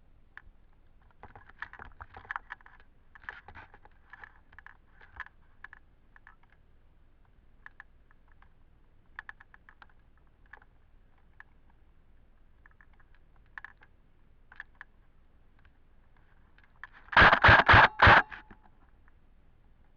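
Airsoft guns firing: scattered sharp clicks and snaps, then a much louder cluster of about four shots in quick succession near the end.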